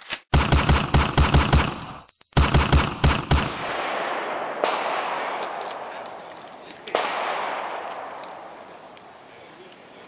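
Gunfire: two bursts of rapid automatic fire, about six shots a second, with a brief break between them. These are followed by two single shots, each trailing off in a long echo.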